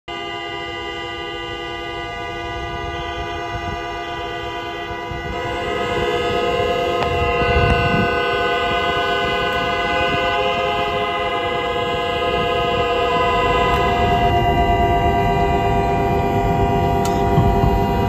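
Many vehicle horns held down together in one long, steady chord of several pitches, sounded across the city as a three-minute mourning signal. It swells louder about five seconds in.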